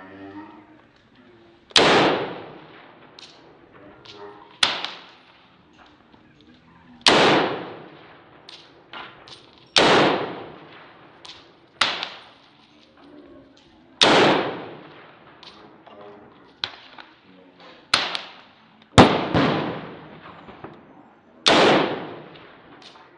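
Gunshots, about ten of them spaced one to three seconds apart, some louder than others, each trailing off in a short echo.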